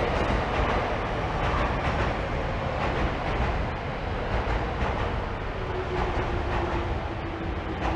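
City road traffic: a dense, steady rumble of passing vehicles, with a faint steady hum joining about five and a half seconds in.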